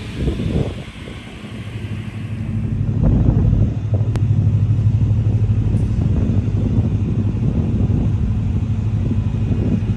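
An engine running with a steady low hum that builds over the first three seconds and then holds.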